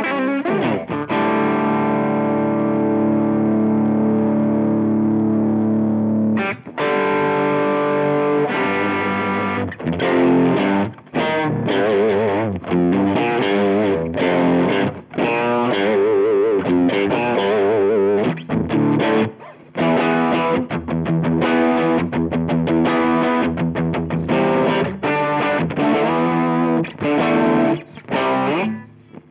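Electric guitar played through a Chevtone Messiah Drive overdrive pedal, giving a crunchy British-amp-style distorted tone: a sustained chord rings for about six seconds, then a riff of short chords and single notes with brief stops.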